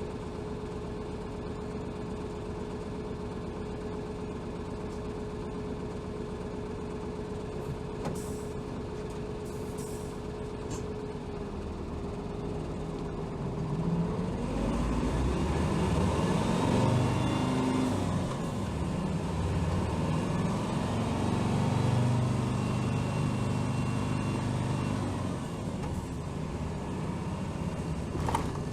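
Interior sound of a Hino Rainbow HR city bus: the diesel engine idles with a steady whine for about twelve seconds. The bus then pulls away, the engine getting louder and rising in pitch, with a dip in pitch like a gear change, before it settles and eases off near the end.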